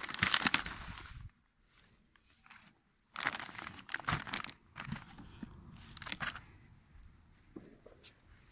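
Plastic wrapping on packs of firework rockets crinkling and rustling against cardboard as they are handled in a box, in bursts with a pause of about two seconds after the first.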